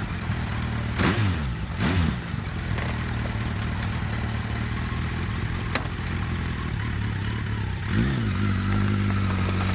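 Suzuki GSX 1250 FA's inline-four engine idling, the throttle blipped twice in quick succession in the first two seconds and once more near the end, after which it runs a little louder and steadier.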